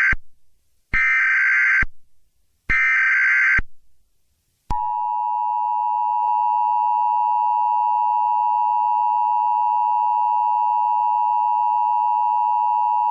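Emergency Alert System tones: the end of one SAME header data burst and two more full bursts, each about a second long with short gaps, then the EAS two-tone attention signal (853 and 960 Hz together), a steady loud tone held for about eight seconds.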